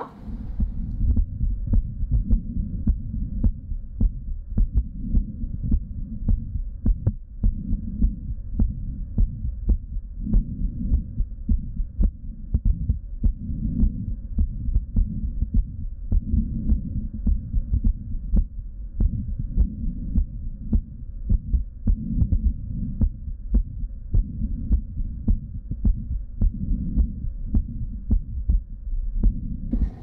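A woman's heartbeat heard through a Littmann stethoscope over the aortic and pulmonary valve areas: a steady, regular run of low beats, muffled and cut off above the low and middle range. The heart has diastolic dysfunction and an audible heart murmur.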